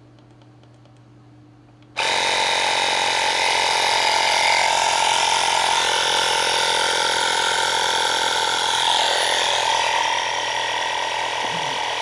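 Handheld cordless electric tire inflator's compressor starting about two seconds in and running steadily for about ten seconds, pumping a 10-inch scooter tire up toward 35 psi, then cutting off suddenly near the end.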